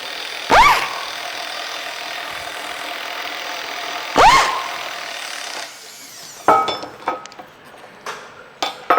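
Air impact wrench on a pump coupling's bolts: two loud bursts whose pitch rises sharply, about half a second in and about four seconds in, with a steady hissing run between them. After that come several short metallic knocks and clinks.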